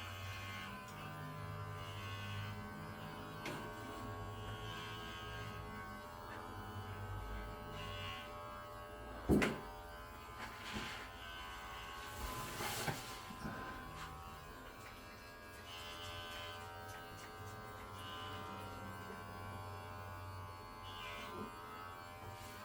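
Electric pet hair clippers running with a steady buzz while trimming a cat's fur, with a brief sharp knock about nine seconds in.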